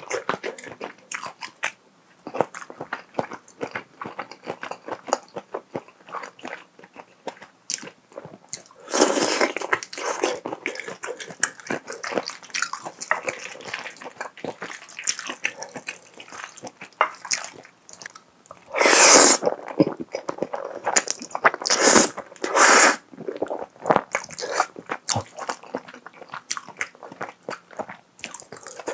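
Close-miked chewing of creamy wide-noodle pasta with shrimp: quick wet mouth clicks and smacks throughout, with a few louder slurps of about a second each, one about a third of the way in and two about two-thirds through.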